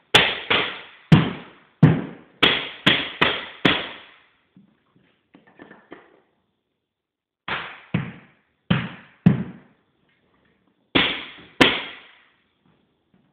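Primatech 250ALR pneumatic floor cleat nailer struck with a mallet, driving cleats into 3/4-inch solid white oak strip flooring. Each shot is a sharp bang followed by a short hiss. About eight shots come in quick succession, then after a few seconds' pause six more come in two groups.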